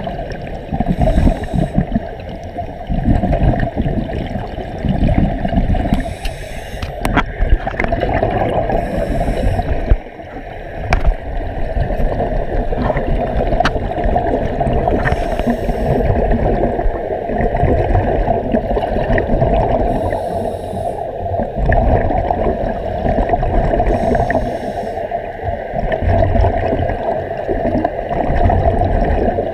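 Scuba breathing heard underwater: a diver's regulator hisses and exhaled bubbles gurgle out in bursts every few seconds, over a steady muffled underwater rumble.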